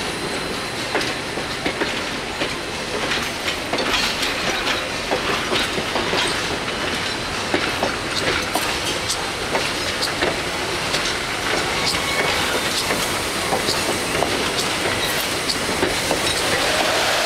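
Railroad passenger coaches rolling slowly past, their steel wheels clicking and clanking irregularly over the rail joints with a steady rumble, behind the Nickel Plate Road 765 steam locomotive. Near the end a hiss of steam from the approaching locomotive begins to build.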